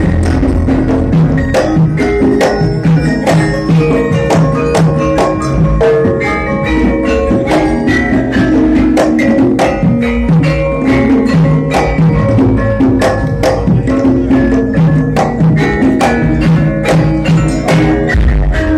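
Loud music of struck, bell-like mallet percussion with sustained pitched notes and regular percussive strikes keeping a steady beat.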